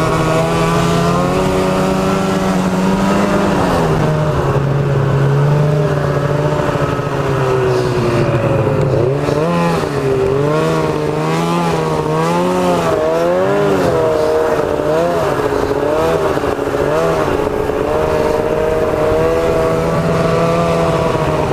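Snowmobile engine running at low throttle as the sled carves slow turns in the snow. The revs dip about four seconds in, rise and fall repeatedly through the middle, and settle to a steady drone near the end.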